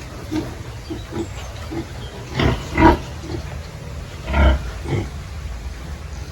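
Pigs grunting: a string of short low grunts, with four louder calls in the middle, over a steady low rumble.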